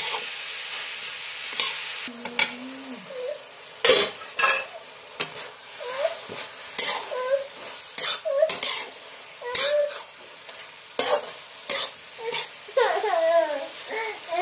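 A metal spatula stirring chopped vegetables in a kadai, scraping and clicking against the pan again and again, over a steady sizzle of the vegetables frying in oil.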